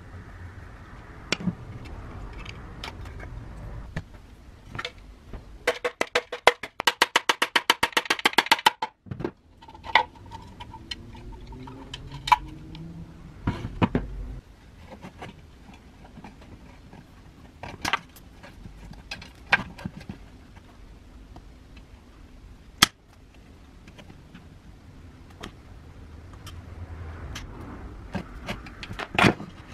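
Hand tools and metal parts being handled while taking apart an electric planer's motor housing: scattered clicks and knocks. About six seconds in there is a quick, even run of clicks lasting some three seconds.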